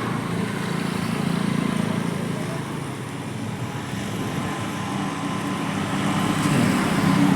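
Steady road traffic noise with a low hum.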